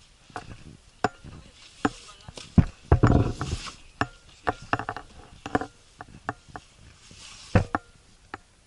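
Footsteps and loose stones on rocky volcanic ground: irregular sharp clicks and knocks, with a louder scuffing burst about three seconds in.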